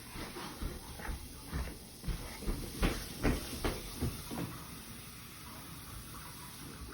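A series of light knocks and clunks from things being handled, then a faint steady hiss.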